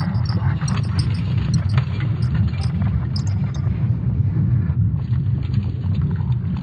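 Sonification of Earth's magnetic field made from ESA Swarm satellite data: a steady, deep, unnerving rumble. Faint scattered crackles and clicks sit above it during the first few seconds.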